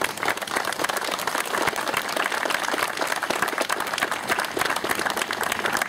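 A small crowd applauding, many hands clapping at once, breaking out right after a speech ends.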